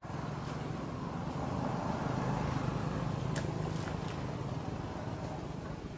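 Steady low rumble of a running motor, with a few faint sharp clicks about halfway through.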